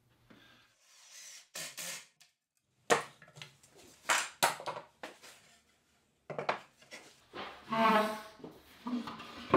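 Cherry table frame being handled and turned over on a workbench: several sharp knocks of wood on wood, with rubbing and sliding between them and a short scraping squeak near the end.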